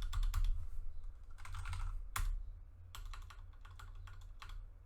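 Keys of a mechanical keyboard with Cherry MX Speed Silver switches being pressed, in quick runs of clicks and single strokes, as freshly fitted keycaps are pushed on and tried.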